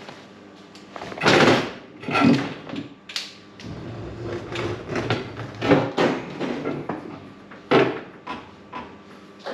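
Stainless steel worktop being shifted and set down onto its frame: an irregular string of sheet-metal scrapes, bumps and knocks, the loudest a long scrape about a second in and sharp knocks around six and eight seconds.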